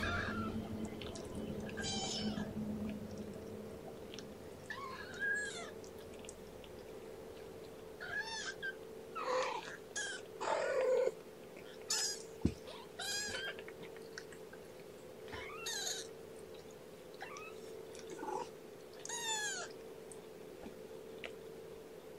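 Young kittens, about two and a half weeks old, mewing: a dozen or so short, high-pitched mews, each rising and falling in pitch, every second or two, over a steady faint hum, with one sharp click about halfway.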